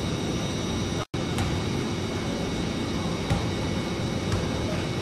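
Steady roar of air-handling machinery in a concrete arena corridor, with a few faint taps from a soccer ball being kicked around. The sound cuts out for an instant about a second in.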